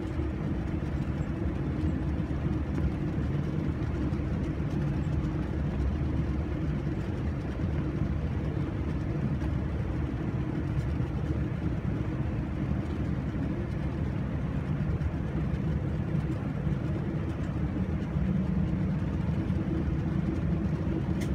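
Boeing 787-9's GEnx engines at low taxi thrust heard from inside the cabin: a steady low rumble and hum while the airliner taxis, a little louder in the last few seconds.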